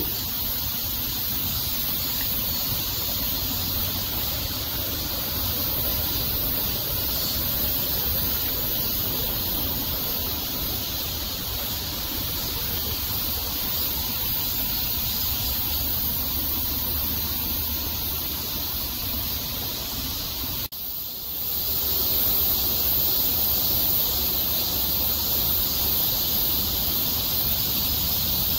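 Steady hiss of outdoor background noise with no distinct events. It breaks off briefly at a cut about twenty seconds in and comes back slightly louder.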